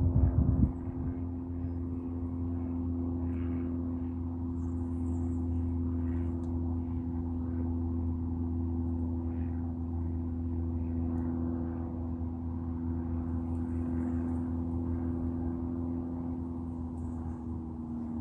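Steady engine drone: a constant low hum with a few held tones that dip slightly in pitch near the end.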